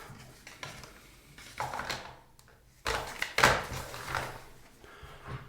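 Packaging being handled: a few irregular rustles and light knocks of cardboard box and plastic.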